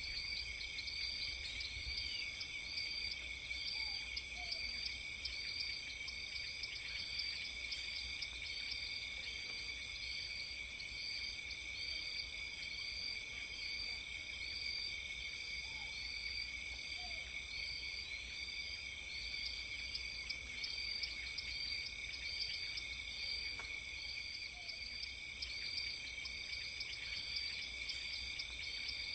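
Steady high-pitched insect trilling, with short higher chirps repeating about once a second.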